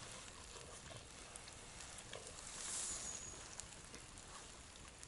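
Faint sizzling of food cooking in a sadzh pan over a campfire. The sizzling swells briefly about halfway through, with a few light ticks.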